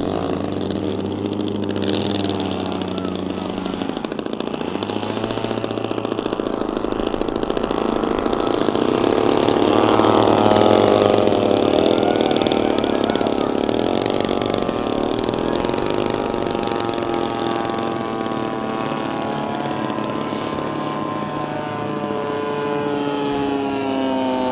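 Single engine of a large-scale radio-control model plane running at high power through its takeoff and climb-out. It is loudest about ten seconds in, as it passes closest, and its pitch falls near the end as it flies away.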